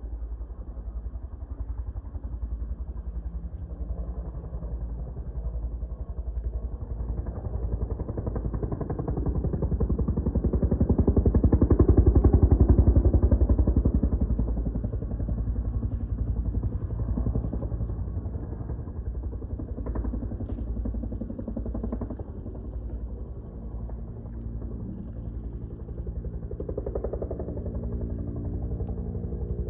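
A vehicle engine running with road noise. It swells to its loudest about twelve seconds in, then eases back to a steady level.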